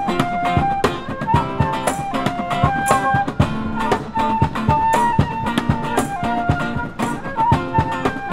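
Cajón played by hand in a steady groove, deep bass thumps mixed with sharp slaps, under a flute melody of held notes.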